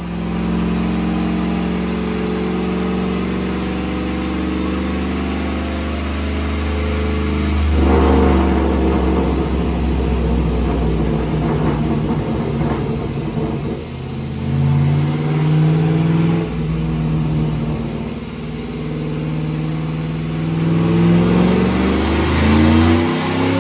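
GMC Yukon's 4.8-litre V8 with a straight-piped catback exhaust running on a chassis dyno. It holds steady at first, then the revs climb, drop suddenly at a gear change, and climb again to a second drop near the end. A thin high whine rises and falls over the engine.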